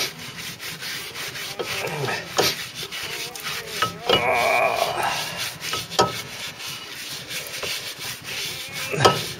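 Cloth rubbing and scrubbing over the face of a new steel brake disc as it is wiped down with methylated spirits to clear grease contamination. It is loudest for about a second around four seconds in, with a few light knocks.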